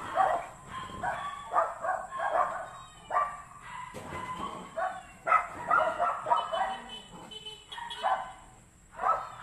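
Dogs barking and yipping in a series of short, irregular barks.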